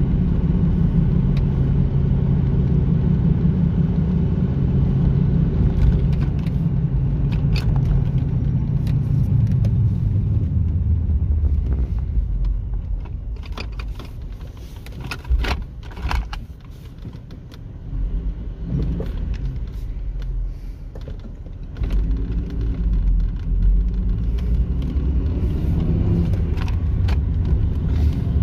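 A 2001 Ford Mustang heard from inside the cabin while driving: a steady low engine and road rumble. About twelve seconds in it quiets for roughly ten seconds as the car slows and waits at a red light, with a few clicks and rattles. It then rises again as the car pulls away.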